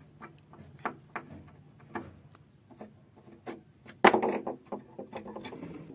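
A metal pull handle being worked loose from a wooden gate with hand tools: scattered light clicks and taps of tool on metal and wood, then a louder scrape about four seconds in.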